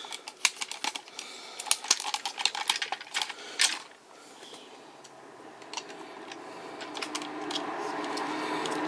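Hard plastic toy parts clicking and clattering as the arms and joints of a Takara Tomy Drive Head transforming robot are pushed and snapped into place, a quick run of clicks over the first few seconds. After a short lull a steady hum comes up and grows louder toward the end.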